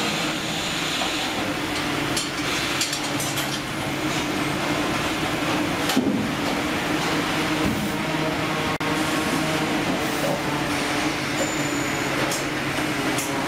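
Fish processing line machinery running: conveyors and processing machines giving a steady mechanical hum with frequent clicks and clattering. The sound briefly drops out about nine seconds in.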